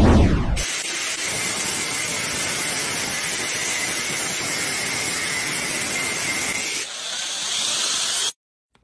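Angle grinder cutting into a steel hammer head, a steady grinding hiss for about six seconds after a brief low thud at the start. About seven seconds in the sound changes to a drill boring into the hammer head, then it stops abruptly.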